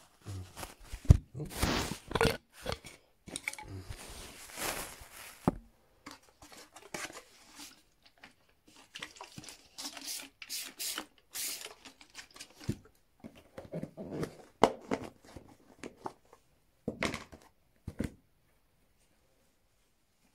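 Irregular rustling and wiping as a mirror's glass is rubbed clean, with a few sharp knocks of handling. It stops about two seconds before the end.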